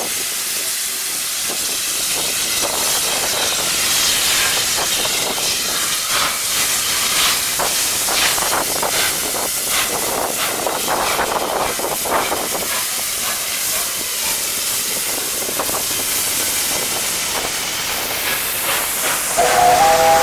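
Three-cylinder Peppercorn A1 steam locomotive pulling away: a steady hiss of escaping steam with irregular exhaust beats through the middle. Near the end a whistle of several tones starts to blow.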